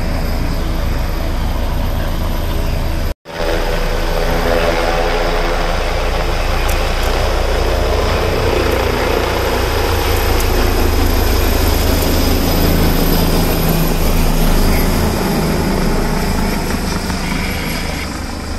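Helicopter running loudly as it flies low and climbs away, a steady rotor and engine noise with a strong deep rumble. The sound breaks off for an instant about three seconds in and grows a little fainter near the end.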